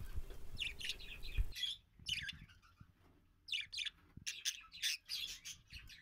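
Budgerigars chirping: short, high chirps coming in small clusters, repeated over and over.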